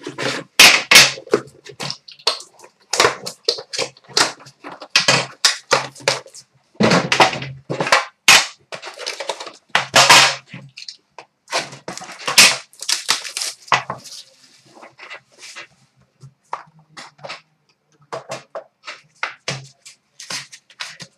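Hands opening a hockey trading-card box: a close run of sharp crackles, scrapes and knocks as wrap, sleeve and cardboard are handled, busy for most of the first two thirds, then thinning to scattered clicks.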